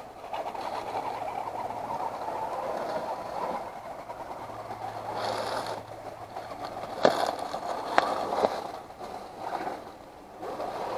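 An Axial SCX10 II RC crawler's electric motor and drivetrain running as it crawls over dirt, with two sharp knocks about seven and eight seconds in.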